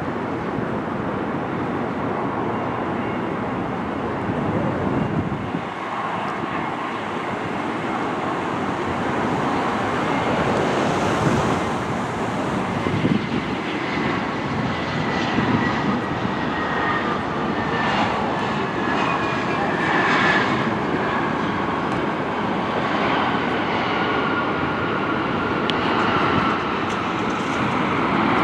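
Jet engines of an Airbus A319-100 airliner coming in to land: a steady rushing rumble with a thin whine that slides slowly down in pitch as the plane passes, growing louder near the end.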